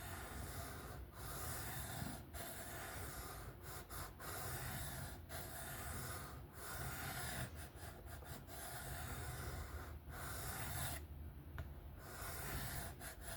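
A Kizer folding knife's 154CM steel blade being drawn freehand across a 1200-grit sharpening stone at its existing angle. Each stroke is a steady scraping, with short breaks about every second between strokes.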